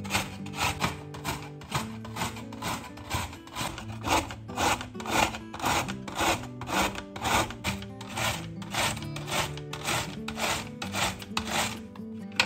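A carrot grated on the coarse steel plate of a plastic box grater, a rasping stroke about twice a second in a steady rhythm, stopping just before the end.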